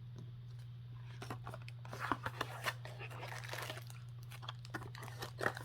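Packaging being handled during an unboxing: crinkling and rustling with scattered small clicks, over a steady low hum.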